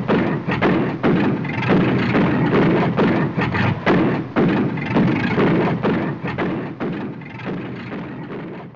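Percussive soundtrack of dense, loud thuds, about two a second, fading out near the end.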